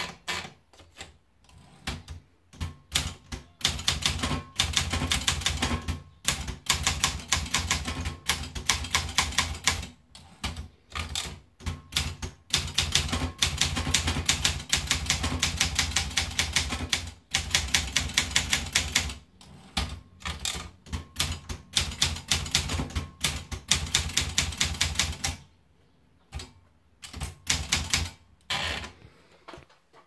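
Olympia Monica manual typewriter: a few ratchet clicks as the platen is turned to feed the paper, then fast typing, each key strike a sharp clack, in long runs with short pauses. Near the end, a few more strikes and the platen is wound to roll the paper up.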